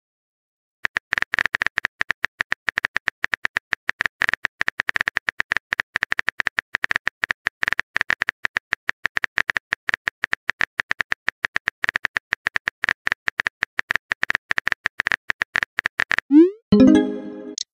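Simulated phone-keyboard typing clicks, many a second, as a text message is typed out letter by letter. Near the end, a short rising swoop and a brief tone as the message is sent.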